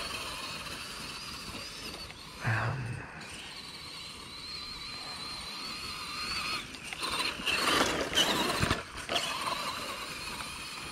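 Traxxas E-Maxx 3906 RC monster truck running, its 775-size 'soup can' electric motor and steel spur and pinion gears whining, the pitch wavering with the throttle. The sound gets louder in a run of uneven bursts from about seven to nine seconds in.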